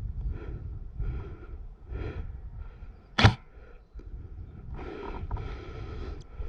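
Low rumble and rustling of movement on a head-worn action camera, with soft, evenly spaced rustles. One short, sharp crack about three seconds in, the loudest sound. A longer stretch of rustling near the end.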